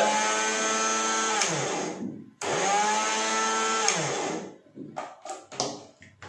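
NutriBullet single-speed blender motor run in two short bursts of about two seconds each, its whine dropping in pitch as it winds down each time. A few clicks and knocks of the plastic cup being handled on the base follow.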